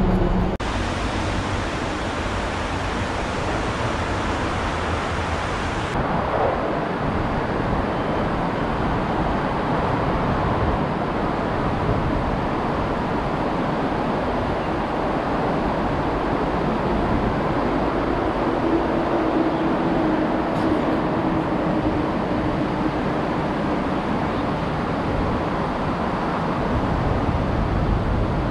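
Steady road traffic noise, a continuous rumble and hiss from vehicles crossing the bridge overhead.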